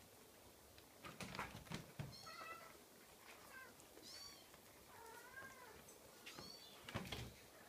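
Scottish fold kitten meowing: a string of short, high-pitched meows, about one a second. A few sharp knocks come in the first two seconds and again about seven seconds in.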